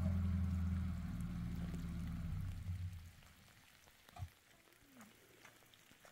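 A motor vehicle's engine running with a low hum, its pitch slowly falling as it fades away about three seconds in. After it come faint scattered light taps and a single dull thump a little past four seconds.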